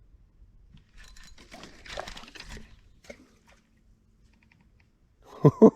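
Brief rustling and crackling for about two seconds, then a man bursts into laughter near the end.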